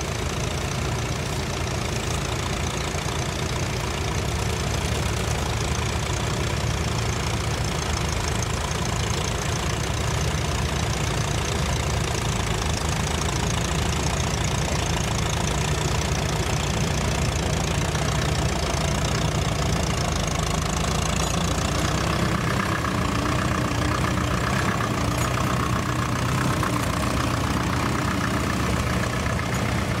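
Small grey vintage Ferguson tractor's engine running steadily as it pulls a plough through the soil. About two-thirds of the way through, the engine note changes to that of another tractor engine.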